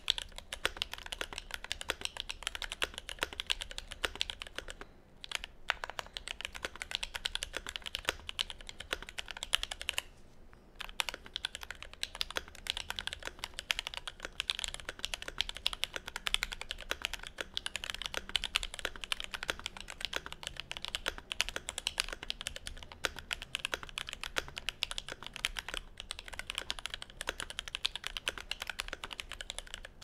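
Fast continuous typing on a Glorious GMMK Pro mechanical keyboard with lubed, filmed Gateron Black Ink V2 linear switches and ABS Cherry-profile keycaps: a dense stream of keystrokes. The typing pauses briefly about five seconds in and again about ten seconds in.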